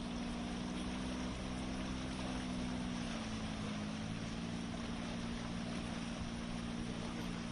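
Outboard motor of an inflatable rescue boat running at a steady cruising speed, a steady drone that dips slightly in pitch about three seconds in, over an even rushing hiss of water and wind.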